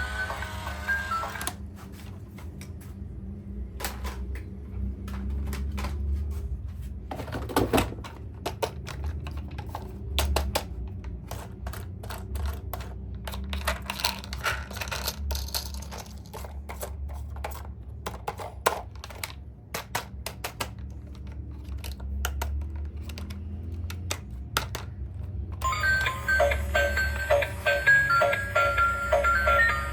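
Toys and packaging being handled: irregular sharp clicks and knocks over a steady low hum. Background music plays briefly at the start and comes back for the last few seconds.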